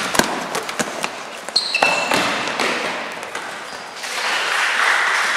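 Basketball game play on an indoor court: the ball bouncing and sharp knocks, with short high sneaker squeaks on the floor about one and a half to two seconds in.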